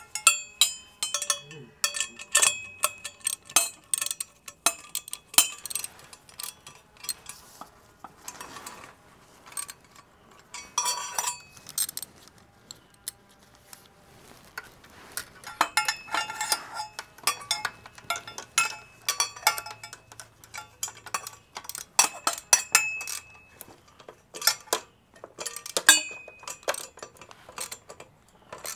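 Metal hand tools and exhaust parts clinking and knocking against each other in irregular sharp clicks, some ringing briefly.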